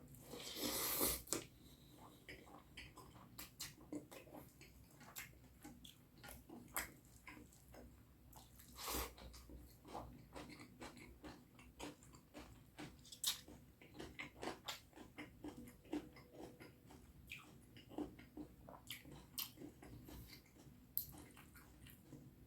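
Close-miked chewing and mouth sounds of someone eating curry and rice: many small, irregular wet clicks, with a louder burst about a second in.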